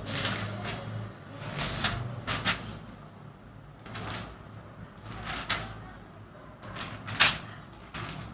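Irregular short scrapes and knocks of something being handled, with a sharper knock about seven seconds in.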